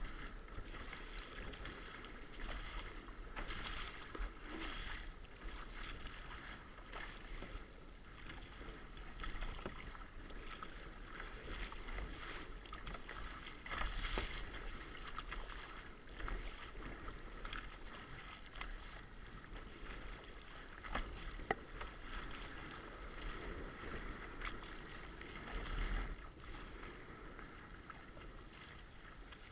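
Kayak paddle strokes splashing through choppy water, a rush of water every two seconds or so, with small waves slapping the hull of a plastic sit-on-top kayak.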